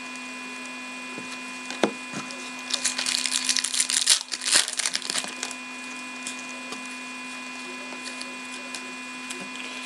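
Hockey trading cards and their pack wrapper being handled: a faint click, then a few seconds of rustling and crinkling about three seconds in, over a steady electrical hum.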